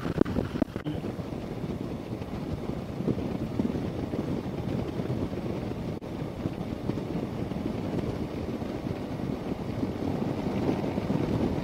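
Harley-Davidson touring motorcycle's V-twin engine running at a steady cruise through Rinehart exhaust pipes, with wind buffeting the helmet-mounted microphone.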